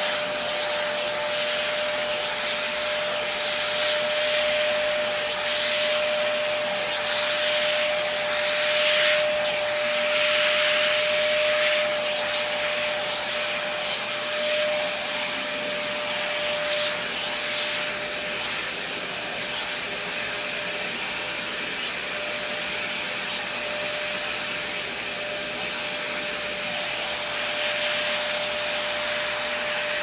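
Canister vacuum cleaner running steadily, a continuous rush of air with a steady motor hum and high whine, its hose nozzle drawn through a cat's fur. The suction noise swells briefly a couple of times as the nozzle moves over the fur.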